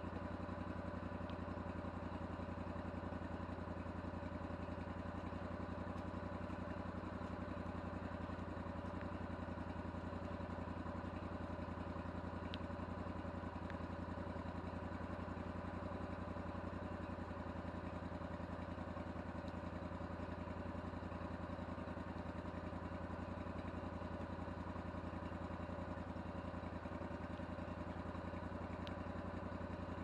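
Engine of a Vallee Green Monster Wide portable band sawmill running steadily at idle, with an even, unchanging hum.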